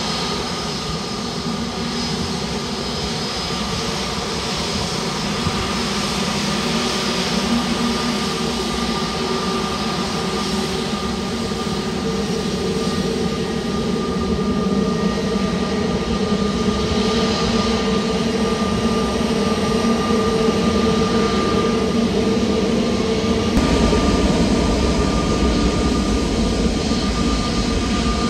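Jet aircraft engines running with a steady roar and a high whine, slowly growing louder. Near the end the low rumble abruptly gets heavier.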